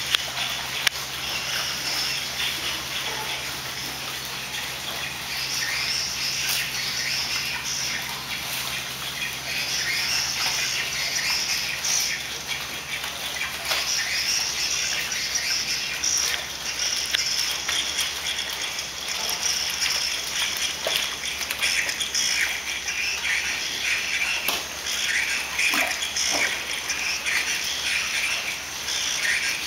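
Water splashing and gushing as raw jellyfish are washed by hand in water-filled tubs and on a flooded floor, a steady wash of splashes with small knocks and slaps throughout.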